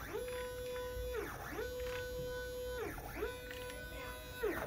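Large stepper motor whining through repeated moves: three times its pitch glides up to a steady tone, holds about a second, then glides back down. The smooth up-and-down glides are the motor ramping its speed under a lowered maximum acceleration set in Marlin firmware.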